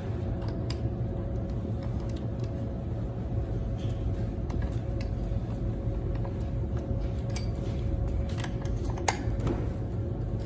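Scattered light metallic clicks and ticks as a bicycle pedal is threaded into the crank arm and tightened with a wrench, with one sharper click near the end, over a steady low hum with a faint constant tone.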